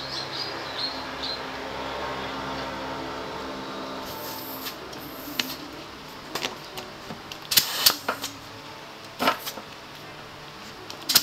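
Air-hose tyre inflator with a dial gauge on a scooter tyre valve: short hisses of air and sharp clicks as the chuck is pressed on and air is let in, the loudest bursts about eight seconds in and near the end. A steady hum sits underneath for the first few seconds.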